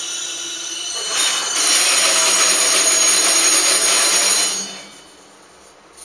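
Freight container train's wheels and brakes squealing and hissing as it rolls slowly to a stop; the squeal cuts off sharply about four and a half seconds in as the train halts.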